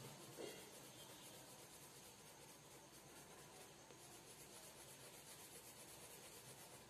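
Faint scratching of a colored pencil shading lightly on sketchbook paper, barely above a low room hiss.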